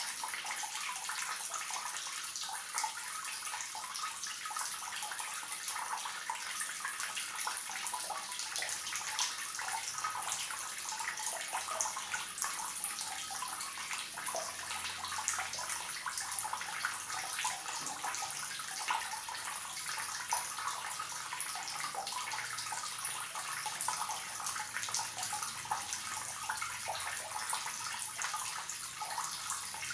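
Water streaming from a leaking tap: a steady, unbroken splashing trickle.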